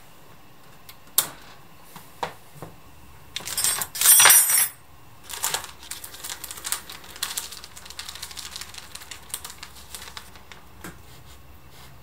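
Scattered sharp metallic clicks and clinks, with a louder clatter of metal with a ringing edge about four seconds in, then lighter clinking that fades out.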